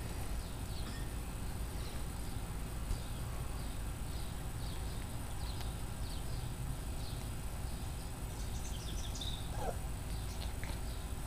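Outdoor background with a steady low rumble, small birds chirping off and on, and a few faint clicks.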